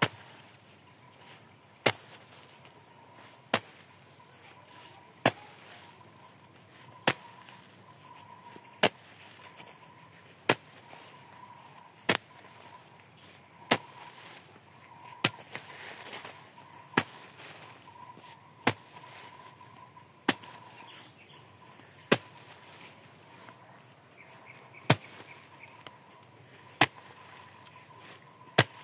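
A homemade hole punch, a serrated metal tube on a pole, is driven down through taut plastic mulch into the soil, and each hole is cut with a sharp crack. The cracks come at a steady pace, about one every 1.7 seconds, with one longer pause near the end.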